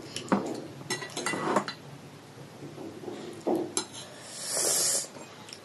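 Cutlery clinking and knocking against plates and bowls during a meal, a few separate strokes, with a longer hissing sound about four and a half seconds in.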